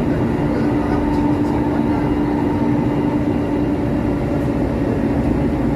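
CKD Tatra RT8D5M light rail train running, a steady rumble of wheels and bogies on the rails with a steady hum over it that weakens a little about four seconds in.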